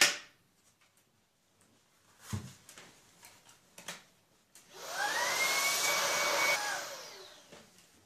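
A sharp click at the start and a knock a couple of seconds later. Then a Shark cordless vacuum's motor is switched on, spins up with a rising whine, runs steadily for about two seconds, and winds down with a falling whine once switched off.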